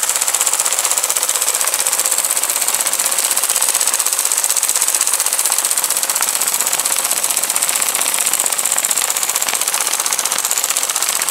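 Metal breaker/hammer attachment of a 1/16-scale RC excavator hammering steadily into hard clay: a fast, continuous clatter of rapid strikes.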